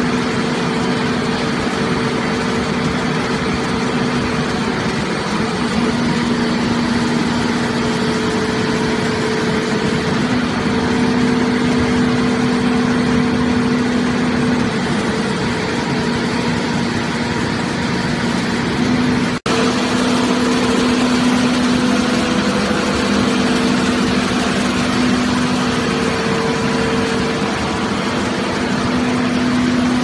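Hydraulic power unit of a scrap car baler running steadily, a loud machine hum with a steady low tone, breaking off for an instant about two-thirds of the way through.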